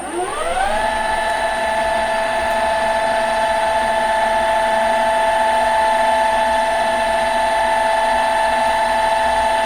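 Lathe spindle motor starting up: a whine that rises in pitch over the first second as it spins up, then runs at a steady speed with a steady high whine, ready for center drilling.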